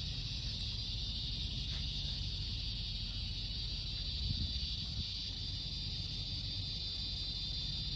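Evening insect chorus: a steady high-pitched drone that does not change, over a low rumbling background that swells briefly about four seconds in.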